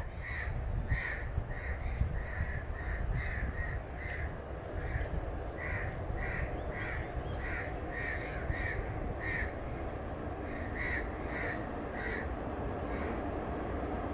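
Crows cawing in a rapid series of short calls, about two or three a second, with a brief pause about ten seconds in, over a low steady rumble from the elevated metro train running past.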